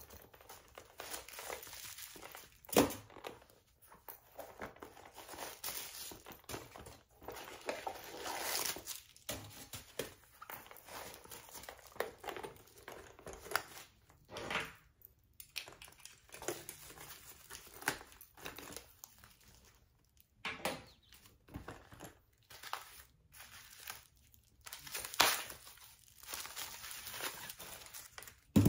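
Tissue paper and paper wrapping crinkling and rustling as they are handled, pulled out of a handbag and unwound from its strap. A few sharp clicks cut through, the loudest about three seconds in and another near the end.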